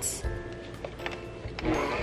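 Soft background music, then about a second and a half in an electric hand mixer switches on, its motor whine rising briefly and then running steadily as it beats pancake batter.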